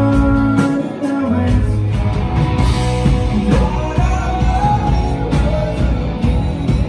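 Rock band playing live: guitars and bass over a steady drum beat.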